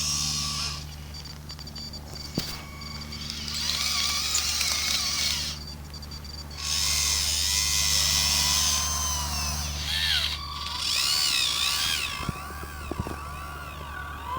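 Small electric motors and hydraulic pumps of radio-controlled construction machine models whining in bursts a few seconds long, the pitch rising and falling as the machines move, over a steady low hum.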